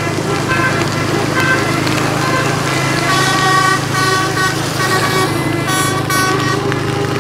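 Indonesian bus 'telolet' horn, a multi-tone Basuri air horn, playing a quick run of short notes in shifting pitches, several tones at once, over a steady low hum.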